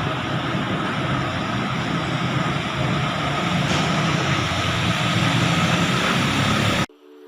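Steady road traffic noise that cuts off abruptly near the end, where electronic music tones begin.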